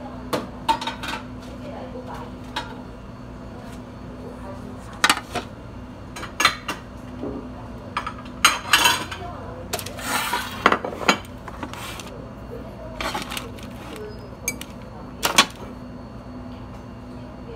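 Kitchen utensils and dishes being handled at a cafe counter: scattered clinks and knocks, with a hiss or rustle lasting about a second some ten seconds in, over a steady low hum.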